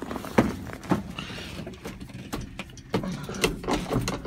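Scattered knocks, clicks and rustling as someone climbs into the cab of a 1965 Ford F-250 and settles at the dash. The engine is not yet running.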